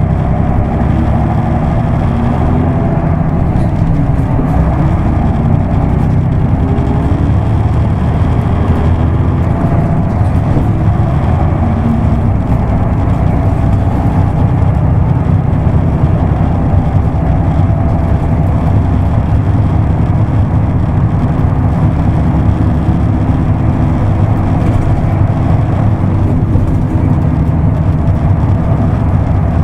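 Isuzu Erga Mio bus's diesel engine running steadily as the bus drives along, its pitch rising and falling now and then with engine speed.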